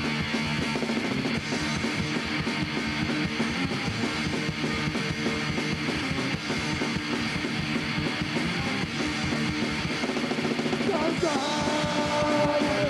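Punk rock band playing live: distorted guitar, bass and drums in a fast instrumental passage, with a shouted vocal coming in near the end.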